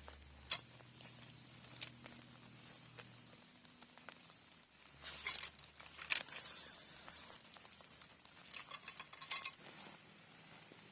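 Scattered light taps and clicks with short rustling bursts, the densest about five to six seconds in and again around nine seconds in.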